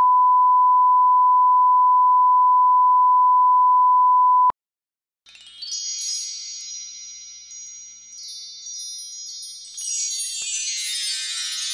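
A steady 1 kHz test tone over colour bars, cutting off sharply about four and a half seconds in. After a short silence, high tinkling chime music begins, its ringing tones layering and swelling near the end.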